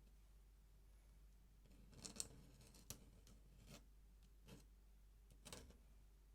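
Faint, short scratches of a pen drawing in ink on paper, about five strokes spaced roughly a second apart over a quiet room background.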